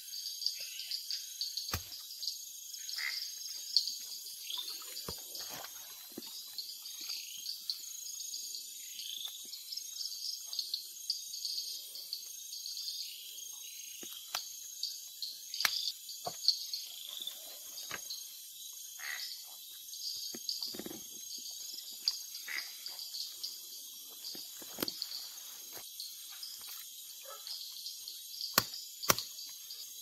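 Night chorus of crickets and other insects, a steady high-pitched trill with an evenly pulsed buzz. Scattered sharp snaps and rustles of footsteps and brushing through grass and undergrowth run through it, the sharpest snaps about 2 s and 4 s in and twice near the end.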